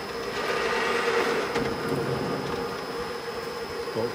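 Shizuoka VHR-SD vertical milling machine running with its power feed driving the table sideways: a steady motor hum with a whirring gear noise that swells about a second in.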